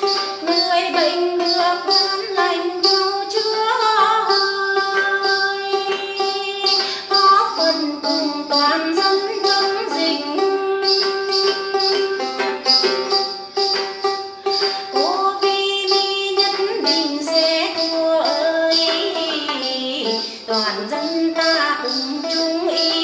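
A woman singing a Tày then folk song while accompanying herself on the đàn tính, a plucked long-necked lute with a gourd body, over a steady beat of sharp strokes about three a second.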